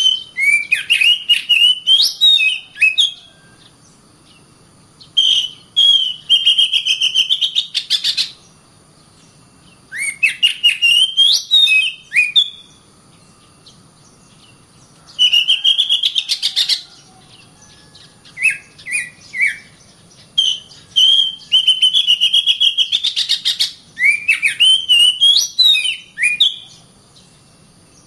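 Oriental magpie-robin (kacer) singing loud phrases of varied whistles and rapid chattering notes. There are about seven phrases, each one to three seconds long, with short pauses between them.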